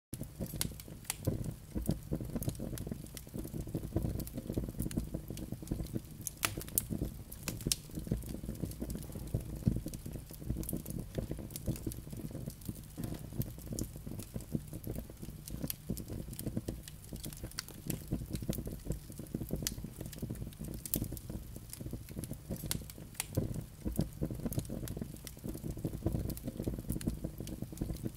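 Wood fire burning in a fireplace: a steady low rush of flames with frequent, irregular sharp crackles and pops from the burning logs. It starts abruptly.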